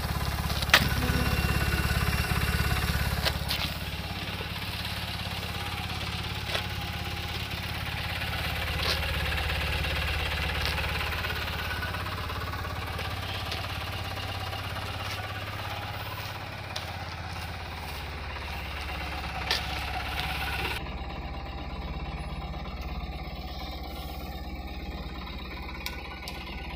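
Tata Ace pickup's small engine idling steadily, with a few sharp knocks from handling close to the microphone.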